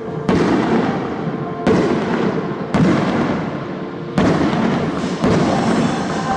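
Fireworks shells bursting overhead: five sharp bangs about a second apart, each trailing off in a long rumbling echo.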